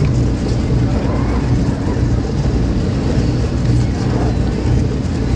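A powerboat's engines running at low speed: a steady low drone with an even hum and some water and wind noise over it.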